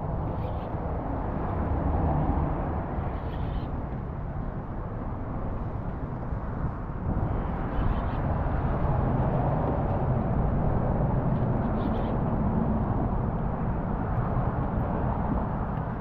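Steady low outdoor rumble, with a few faint short higher-pitched sounds every few seconds.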